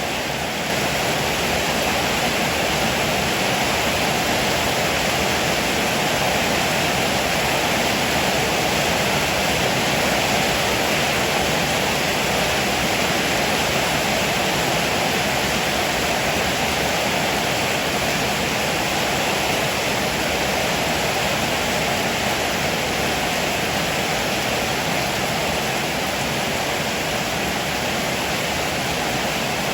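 Heavy rain falling steadily, a dense even hiss that grows a little louder about a second in.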